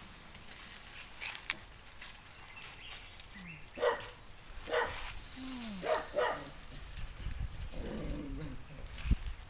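Dog barking a few short barks, about a second apart, at a monitor lizard.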